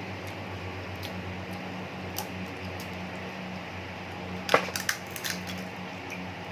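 Shrimp shells cracking and snapping as they are broken apart, a few scattered cracks with a sharp cluster about four and a half seconds in, over a steady low hum.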